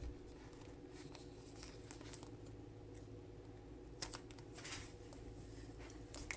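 Faint rustling and light ticks of a sticker sheet being handled while tiny letter stickers are picked off with tweezers, over a steady low hum.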